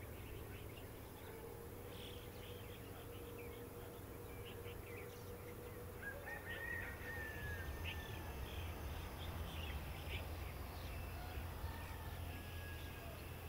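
Low rumble of a Boeing 787's Rolls-Royce Trent 1000 engines, heard from a distance and growing louder as the airliner taxis closer. Scattered bird chirps and a short whistle sound over it.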